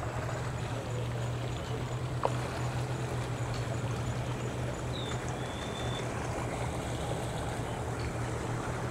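A vehicle or boat engine idling with a steady low hum, over a wash of water noise, with one sharp click about two seconds in.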